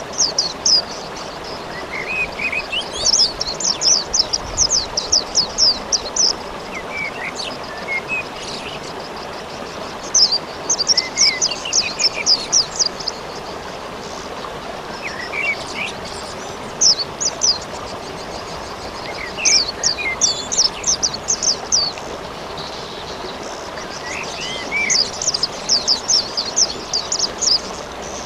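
A small songbird sings rapid high-pitched trills in bursts of two to three seconds, about five times, with a few lower chirps between them, over a steady hiss of rain.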